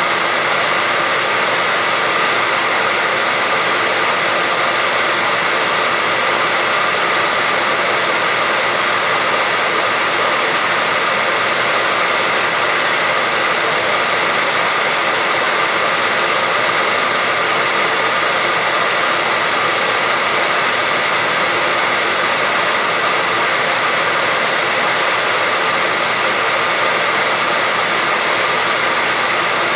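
Hair dryer running steadily: an even rushing hiss with a steady high whine in it, unchanging throughout.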